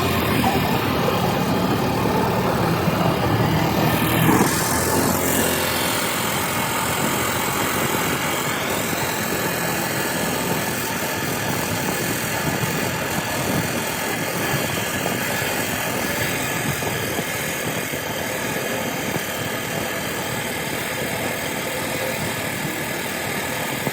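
An engine running steadily, with a brief falling sweep in pitch about four seconds in.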